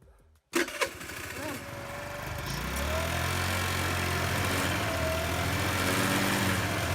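Freshly rebuilt 80cc four-stroke engine of a Forte JK 80 scooter starting smoothly about half a second in, then running steadily at idle, growing a little louder over the first couple of seconds before settling.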